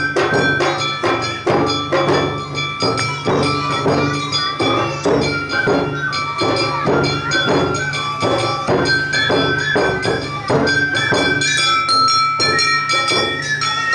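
Awa odori dance music played live by its band: a bamboo flute melody over a brisk, steady beat of drums and a small hand gong.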